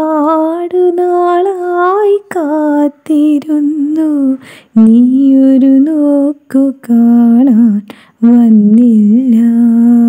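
A woman's voice singing a slow melody in short phrases, with long held notes and wavering ornaments and brief pauses between phrases; no clear words are made out.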